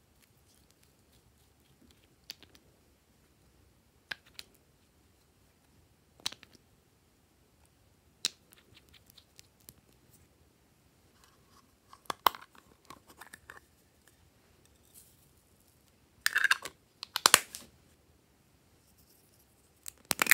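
Small plastic containers handled and prised open by hand: scattered sharp plastic clicks and taps, with two louder bursts of plastic crackling and clicking about three quarters of the way through.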